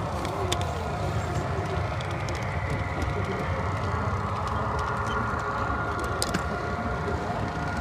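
Model trains running on a layout: a steady rumble with a held tone over it and a few faint clicks.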